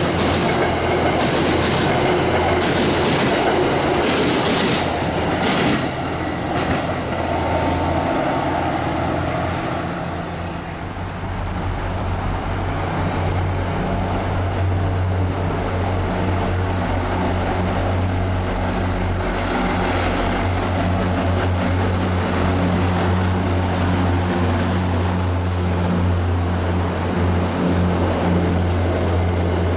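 MBTA commuter rail coaches passing, their wheels clicking over rail joints through the first several seconds over a steady low drone. After a brief drop about ten seconds in, another commuter train rolls by with a steady low drone.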